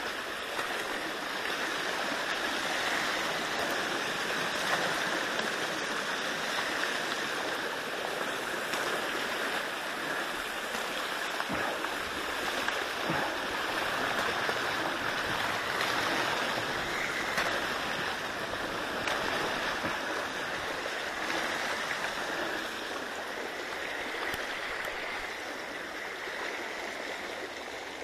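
Water rushing steadily over a beaver dam of mud and sticks, a small cascade splashing and gurgling into the stream below.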